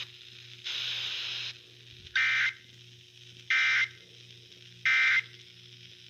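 Three short data bursts about a second and a half apart from a Tecsun handheld radio's speaker, after a second of hiss: the Emergency Alert System end-of-message (EOM) code that closes the Required Monthly Test.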